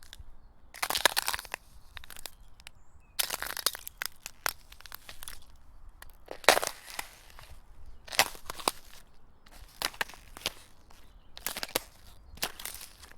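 Footsteps crunching in snow, each step a short crunch, slow and uneven at roughly one step a second.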